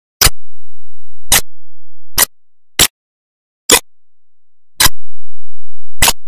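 Seven short, sharp clicks at uneven intervals of roughly a second, with silence between them.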